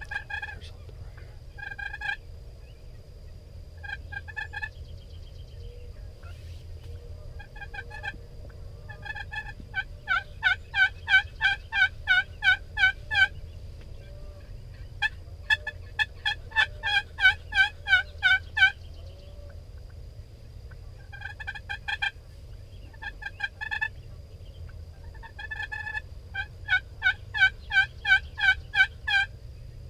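Turkey yelping: series of short, evenly spaced yelps, some slow and spaced, others in quick runs of about three to four notes a second, three quick runs being the loudest.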